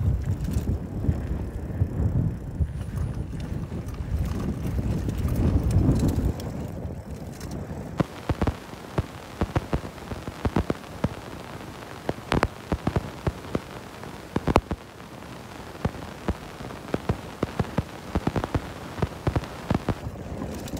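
Mountain bike rolling over a rough dirt track. For the first several seconds there is a heavy low rumble with wind on the microphone. From about eight seconds in comes a busy patter of sharp clicks and rattles from the bike and its tyres on the bumpy ground.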